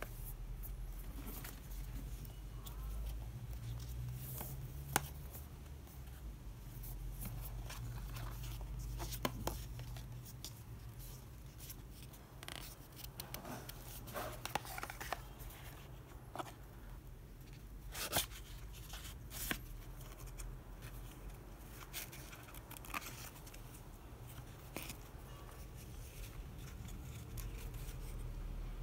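Cardboard pen gift box being handled and opened: the paperboard sleeve slid off, the lid lifted from the black rigid box and the card insert pulled out. Scattered light taps, scrapes and paper rustles over a steady low hum.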